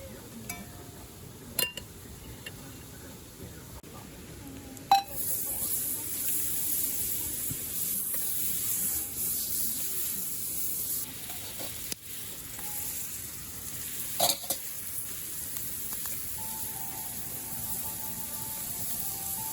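Quiet at first, then a sharp clack about five seconds in, and a steady loud sizzle like food frying in a hot pan over the fire, with a click or two.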